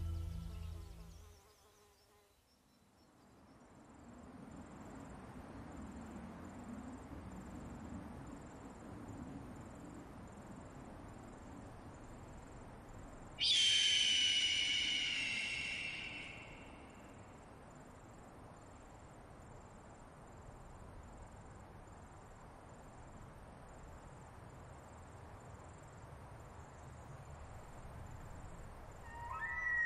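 Insects chirping in a steady, even rhythm over faint outdoor ambience. About halfway through, a louder high-pitched insect call starts suddenly and fades away over about three seconds.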